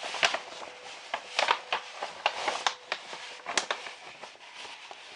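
Packaging being handled and opened by hand: irregular rustling and crinkling with sharp crackles, loudest in the first three seconds.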